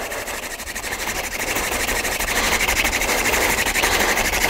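Wooden hand-drill spindle twirled back and forth in the notch of a wooden fireboard, a steady rapid grinding rub that slowly grows louder. This is the early heating-up stage of a friction fire, before the dust has built up.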